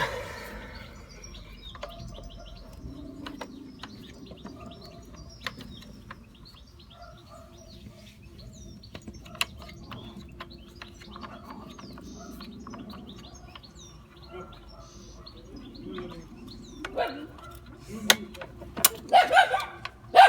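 Birds chirping steadily in the background, with scattered sharp metallic clicks of hand tools on engine parts. A dog barks several times in quick succession near the end, the loudest sound.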